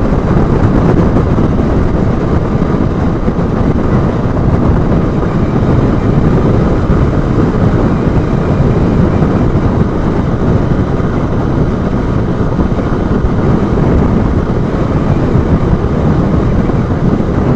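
Honda Bros 160 motorcycle cruising at steady highway speed. Its engine is buried under loud, even wind and road noise on the bike-mounted action camera's microphone.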